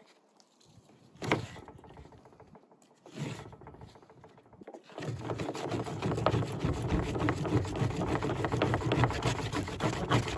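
Wooden top board rolling a cotton-and-wood-ash fire roll back and forth against a bottom board: after two light knocks, fast steady rubbing and scraping starts about five seconds in. This friction is what heats the roll to make an ember.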